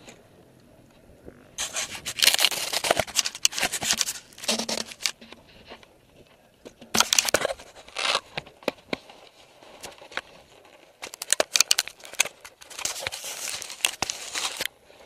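Handling noise on an action camera's microphone: irregular bursts of rubbing, scraping and crackling as the camera is moved about and taken off, with quieter gaps between.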